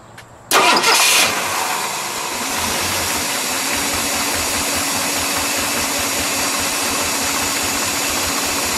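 1966 Ford Fairlane GTA's 390 cubic-inch V8 being started: about half a second in it fires with a brief loud burst, then within a couple of seconds settles into a steady, quiet idle.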